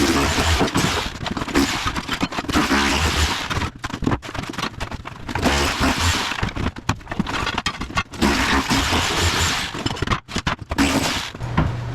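Bosch Bulldog Max SDS Plus rotary hammer with a wide tile chisel hammering up floor tile and cement board, running in spells with short pauses. Tile cracks and scrapes as it breaks loose.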